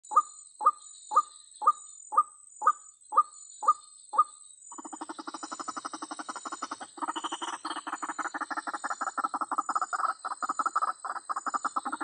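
White-breasted waterhen calling: nine short, evenly spaced calls about two a second, then from about five seconds in a continuous run of fast pulsing notes. A steady high-pitched tone runs underneath.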